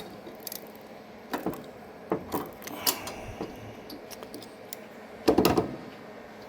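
Light clicks and clatters of small hard parts being handled during battery preparation, scattered through the first three seconds, with a louder burst of clattering about five seconds in.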